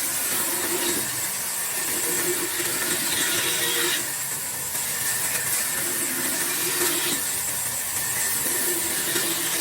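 A power saw running and cutting wood, with a steady hiss and a tone that shifts every three seconds or so as it works through the cut.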